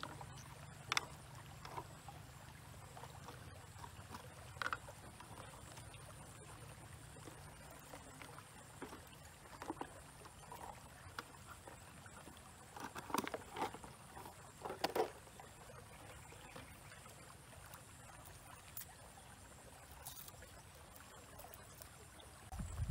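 Scattered light taps and knocks of a knife and small ingredients being handled on a wooden cutting board, with a brief cluster of louder clicks near the middle, over a faint steady background hiss.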